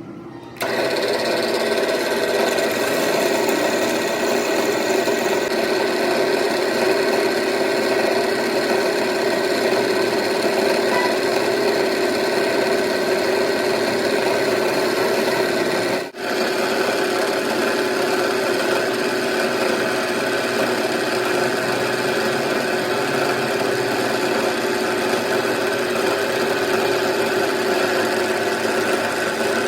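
A workshop machine tool running steadily as it works metal, a constant hum with a rasping cutting noise. It cuts out briefly about sixteen seconds in, then carries on.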